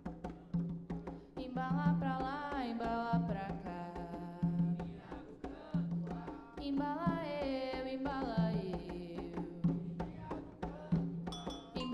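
Afro-Brazilian percussion group drumming a fast, steady rhythm, with a voice singing a sliding melody over the drums.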